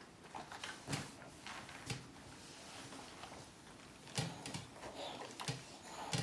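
A few soft knocks and rustles of a shirt being ironed: the clothes iron moved and set down on the ironing board, and the fabric handled.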